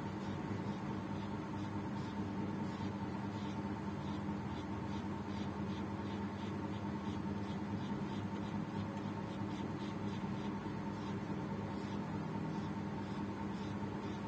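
Paintbrush bristles brushing across paper in repeated short strokes, faint over a steady background hum.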